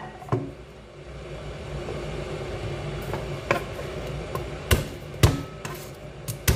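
Kitchen knife cutting into a whole eggplant and knocking on a cutting board: several sharp knocks, the loudest about five seconds in. A steady low hum runs underneath from about a second in.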